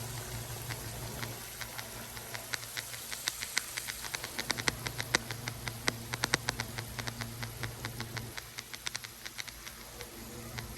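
Food frying in hot oil: rapid, irregular sharp pops and crackles of spattering oil, thickest in the middle and thinning near the end, over a low steady hum.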